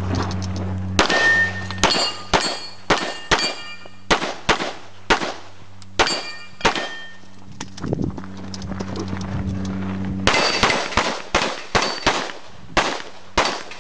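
A competition pistol firing quick strings of shots. A pause comes about midway, then a fast closing string. Some shots are followed by the metallic ring of a steel target being hit.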